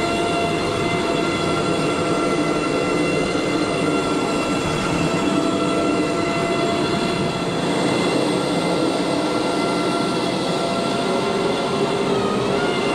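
Rotary carpet-extraction tool working across a carpet, its vacuum drawing through the hose: a steady whining drone over a rushing hiss. The pitch dips briefly near the end.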